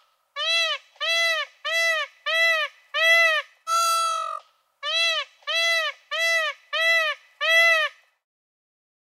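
A bird giving a run of about a dozen short honking calls at an even pace of about two a second, each rising and falling in pitch, with one longer, held call near the middle.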